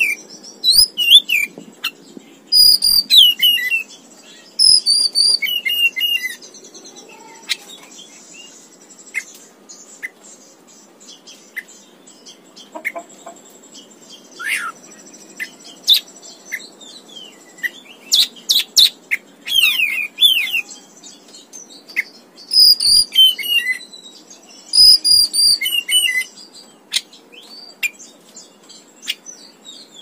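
Oriental magpie-robin (kacer) singing: short phrases of clear whistles and sharp chirped notes, some phrases repeated, with pauses of a second or two between them.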